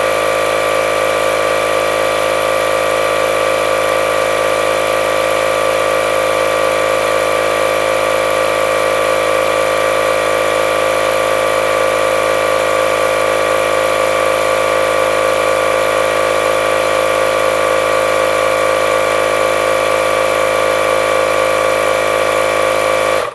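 Milwaukee M12 cordless compact inflator's compressor running steadily as it pumps up a low tyre, then cutting off suddenly at the very end as it shuts itself off at its preset pressure.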